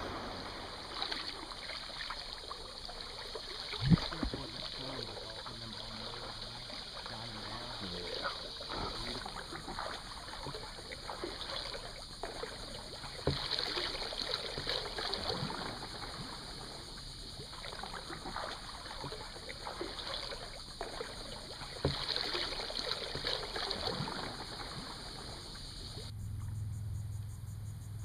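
Kayak paddling on calm river water: water trickling and splashing off the paddle, with a few sharp knocks several seconds apart and a steady high hiss behind it. Near the end the sound cuts abruptly to a low steady hum.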